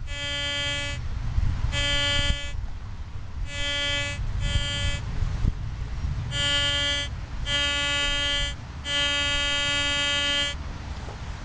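A 40-year-old metal detector sounding its target signal: a steady tone at one pitch, heard about seven times, each lasting half a second to a second and a half, as the search coil passes back and forth over a buried piece of metal.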